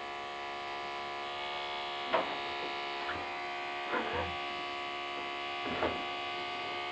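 Cordless electric hair trimmer running with a steady hum as it is drawn over an eyebrow, with a few short, slightly louder scratches where the blade meets the hair.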